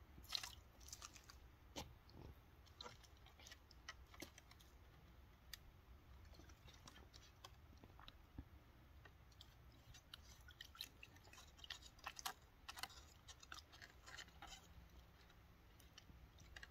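A cat licking and chewing ice from a shallow tray of water: faint, irregular crunches and clicks.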